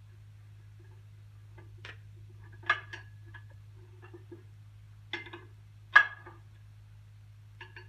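A steel wrench clinking against the clutch adjustment bolts of a John Deere 60 as they are tightened a little at a time. There are about six sharp metallic clinks at uneven intervals, the loudest about six seconds in, over a steady low hum.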